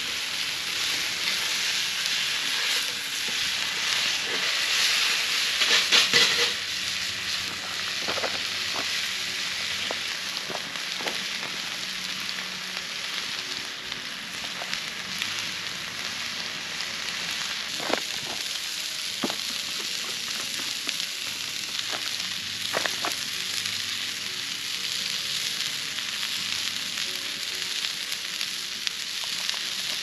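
Vegetables sizzling and frying in a cast-iron skillet over a campfire, a steady hiss that is loudest about five seconds in. A few sharp clicks sound now and then.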